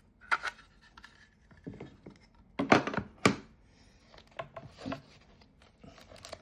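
Knocks and clicks from handling a two-bay SSD enclosure as its case is opened, in separate strikes with the loudest pair about three seconds in.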